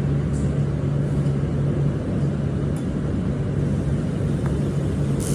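A steady low mechanical hum and rumble, with a couple of faint clicks.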